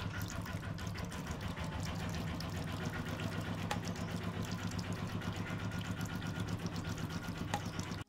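Small electric fountain pump humming steadily, with water pouring from bamboo spouts and splashing onto pebbles in a fast, even patter.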